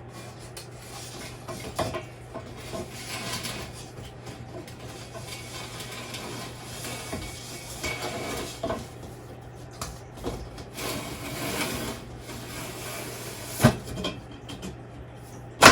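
Laminated bamboo panel being slid into the grooved tracks of a wooden enclosure frame: rubbing and scraping in several stretches, with a couple of sharp knocks near the end as it is worked into place.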